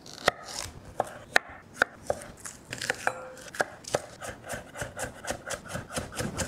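Chef's knife chopping vegetables on a wooden cutting board. It starts with separate, unevenly spaced cuts, then, about four seconds in, shifts to a quick steady run of about four chops a second through green onions.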